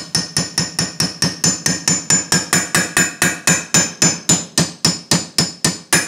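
Small hammer tapping rapidly and evenly, about five strokes a second, each with a light metallic ring, driving an AR-15 gas tube roll pin into the front sight base through a roll pin holder. The tapping stops at the end.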